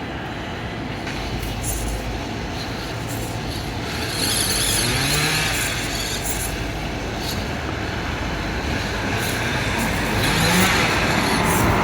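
Micro-scale RC crawler (Axial SCX24-based comp buggy) driving over the rock course: a steady electric motor and gear whine, with scattered small clicks and knocks from the tyres and chassis on the rocks. The whine grows louder about four seconds in.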